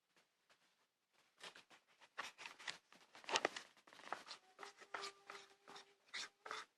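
Irregular scraping and tapping of a utensil stirring a thick cornstarch-and-shampoo slime mixture against its plate, starting about a second and a half in.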